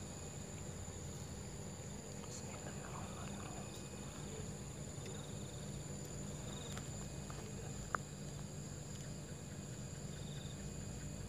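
Crickets and other insects calling with a steady high shrill over a low steady rumble, with a few faint short trills, and a single sharp tick about eight seconds in.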